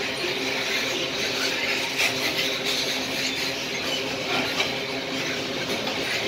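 Loaded coal gondola wagons rolling past on the track: a steady noise of steel wheels on rail, with a sharp clack about two seconds in and another about four and a half seconds in.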